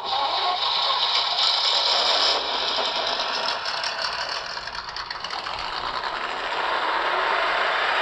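A 1/18-scale RC crawler running: its motor and gearbox whir with a dense rattle. The sound starts abruptly.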